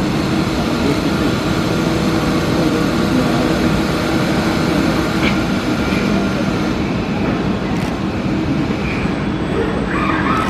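Steady machinery din of a car assembly plant floor, a continuous noisy hum with a low steady tone running through it.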